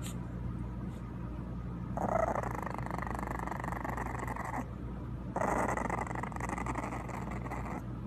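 A young English bulldog puppy growling twice, each rough growl lasting about two and a half seconds, with a short pause between them.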